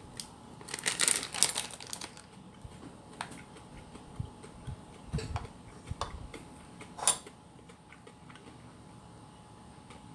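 A plastic candy wrapper crinkling for the first couple of seconds, then quiet handling and eating sounds made of small scattered clicks and soft low thuds, with one sharper click about seven seconds in.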